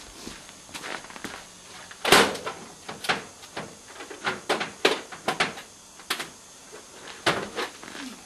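Irregular clunks and knocks of hands and tools working in a car's engine bay under the raised hood, the loudest about two seconds in.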